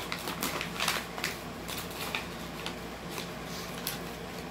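A corgi puppy chewing and tearing a brown paper bag: irregular crinkling and crackling paper, busiest in the first second and a half.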